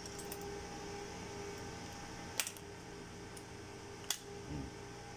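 Plastic housing of a King Vision video laryngoscope display being pried apart by hand: two sharp snaps about a second and a half apart as the glued, screwless casing gives way, over a steady background hum.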